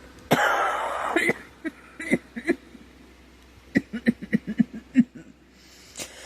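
A woman coughing: one hard, breathy cough, a few short coughs, then a quick run of short hacking coughs. She puts the cough down to a scratchy, sore throat from a cold coming on.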